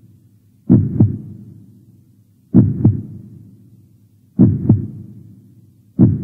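Slow, heavy double thumps in a heartbeat rhythm. Four pairs come about every two seconds, and each pair dies away in a short low tail.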